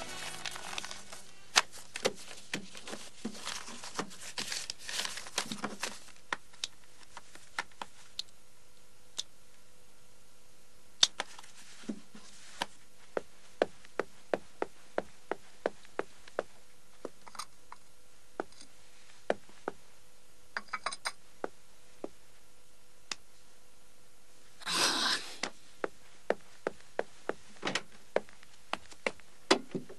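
Objects being handled and rummaged through: a run of sharp clicks and knocks, dense for the first several seconds and then spaced out, with a short scraping rustle late on. A faint steady hum lies underneath.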